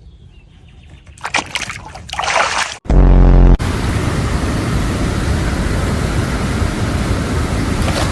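Water splashing for about a second and a half, then a short loud low buzz, then a steady rush of flowing water, like a river or stream running.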